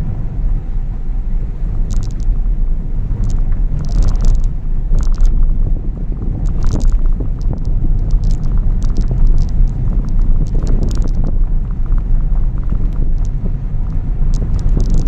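Car driving on a dirt and gravel track, heard from inside the cabin: a steady low rumble of tyres and engine, with frequent clicks and knocks as the car rides over the rough surface.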